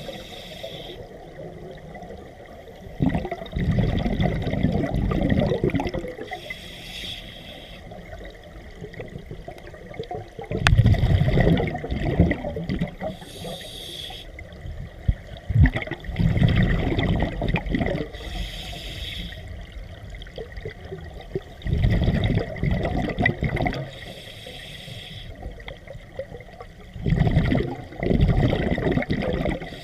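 Scuba diver breathing through a regulator underwater: five breaths, each a bubbling rush of exhaled air lasting two to three seconds, followed by a short hiss of inhaled air.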